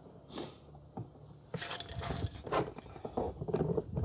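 Handling noise as a washing machine drain pump is set into place: irregular knocks, clatter and scrapes of plastic and metal parts, with a brief swish near the start and a sharper knock at the end.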